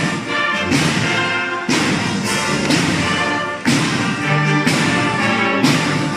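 A wind band plays live: flutes together with saxophones and brass carry the tune over loud drum strikes.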